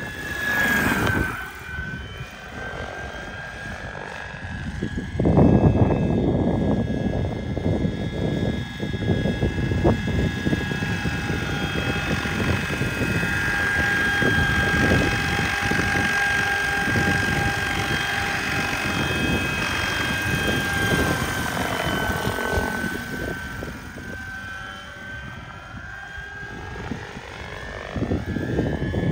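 Radio-controlled 1:6 scale Vario Bo 105 model helicopter in flight: a steady high whine from its drive and rotors over a rushing, fluttering noise. It dips in pitch as it passes about a second in, is loudest a few seconds later when it flies close, and fades near the end.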